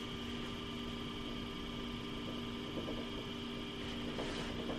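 Steady background hum, a constant machine-like drone with a few fixed low tones and a faint hiss.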